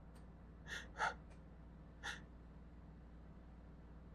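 Three short, quiet breaths through the nose and mouth from a man between induced sneezes, the second, about a second in, the loudest.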